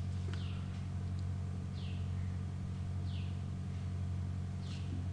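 Steady low background hum with four short, high chirps falling in pitch, about one every second and a half.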